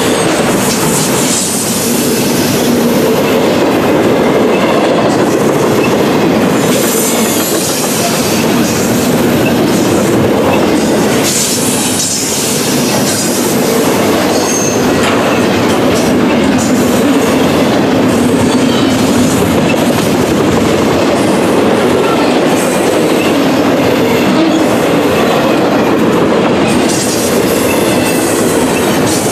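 Double-stack intermodal train's well cars rolling past at close range: a loud, steady rumble and clatter of steel wheels on the rail, with a short high wheel squeal now and then.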